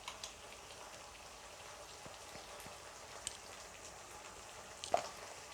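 Small onions and tomato frying in sesame oil in a kadai, a faint steady sizzle with scattered pops as they soften. A sharper click comes near the end.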